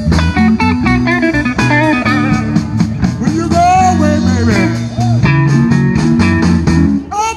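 Live electric blues band playing an instrumental passage: an electric guitar lead with bent, wavering notes over a second guitar and a drum kit.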